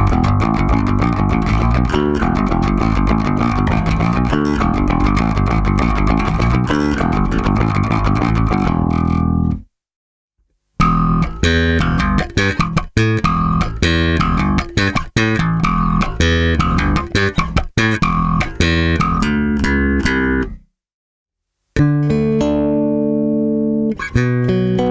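Solo six-string electric bass, a Warwick Corvette with bubinga body and Seymour Duncan Basslines humbuckers, played through its active preamp with both pickups and the treble boosted. It plays three phrases broken by two short pauses: a fast, busy run of notes, then another quick phrase, then slower, longer held notes near the end.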